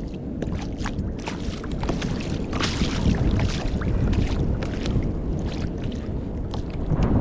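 Wind buffeting the microphone with water lapping against a kayak's hull, with scattered light clicks and small splashes through it; a gust makes it louder near the end.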